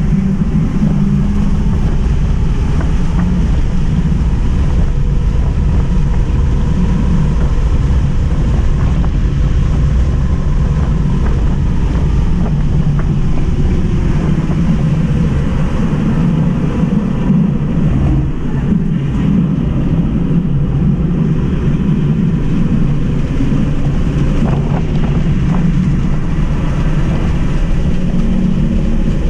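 Road and wind noise inside a Tesla Model 3 Mid Range RWD at about 65–75 mph on a race track: a loud, steady low rumble, with a faint high whine.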